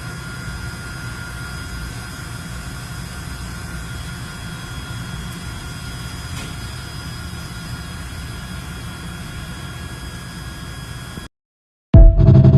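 Steady low rumble and hiss of a running steam heating system, with faint steady whistling tones above it; it cuts off abruptly near the end, followed by a brief loud burst of music.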